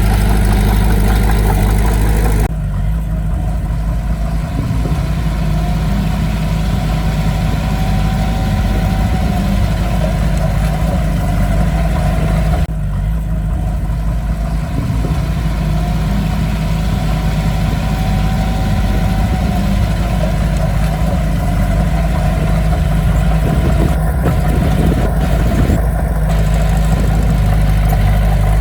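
Heavy diesel engine of earthmoving equipment running steadily, with a deep hum, and the sound changes abruptly about two and a half and twelve and a half seconds in.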